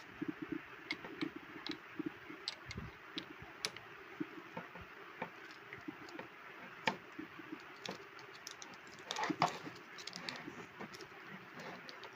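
Scattered light clicks and knocks from a corded electric drill being handled and turned over, with a short cluster of knocking and rustling about nine seconds in; the motor is not running.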